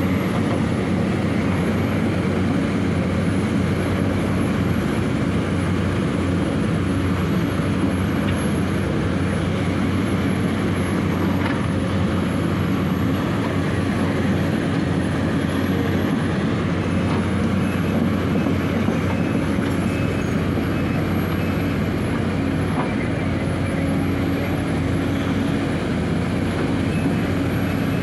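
Sumitomo hydraulic crawler excavator's diesel engine running steadily under working load.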